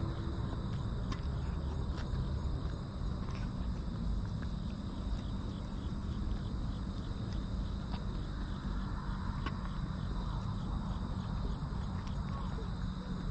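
An orange tabby kitten eating wet cat food from a stainless-steel tray close to the microphone, with scattered faint clicks of chewing and licking. Behind it run a steady high trilling of insects and a louder low steady rumble.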